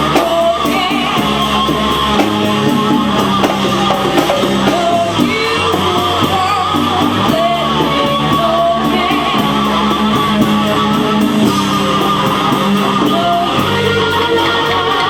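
Rock band playing live: electric guitar and bass with drums keeping an even beat, and a singer over them.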